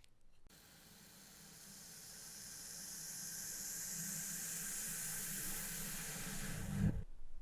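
A hissing sound, played backwards, that swells steadily over about six seconds, ends in a low thump and then cuts off suddenly.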